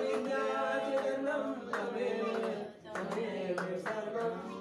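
Voices singing a Hindu devotional prayer in long, drawn-out held notes during aarti, with a sharp beat about every two-thirds of a second.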